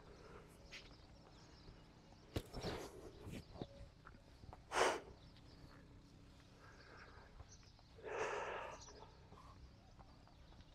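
A horse moving about a sandy round pen: a few soft hoof thuds, a short sharp puff of breath about halfway through, and a longer breathy blow near the end.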